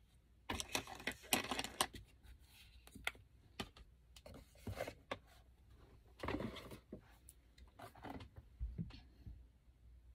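Rummaging through makeup items while searching for a bronzer: irregular clicks, knocks and short bursts of rustling and clattering.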